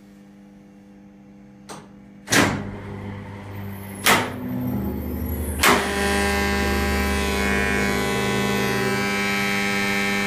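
Hoist contactors in a 1950s crane's Crompton Parkinson control panel clacking shut one after another as the hoist is started up slow: a light click, then three loud clacks about a second and a half apart starting about two seconds in. With each one pulling in, a steady electrical mains hum grows louder.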